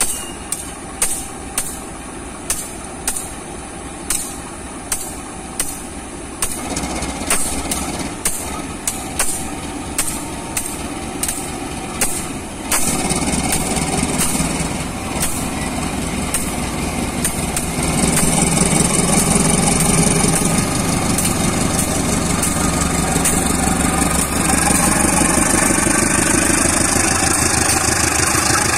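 KAI CC 201 diesel-electric locomotive running as it pulls a passenger train out of the station, with sharp regular clicks about twice a second from the wheels over the rail joints. About 13 s in and again about 18 s in the engine gets louder and stays loud.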